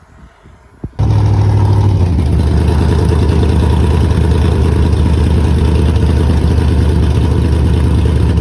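A car engine starts sounding abruptly about a second in and then runs loud and steady, its pitch holding nearly level with no clear revving climb.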